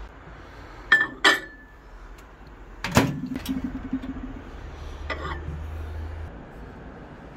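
Kitchen handling sounds around a microwave oven: two sharp clinks of a ceramic bowl about a second in, then a louder knock of the microwave door about three seconds in, followed by a low hum, and another clink a couple of seconds later.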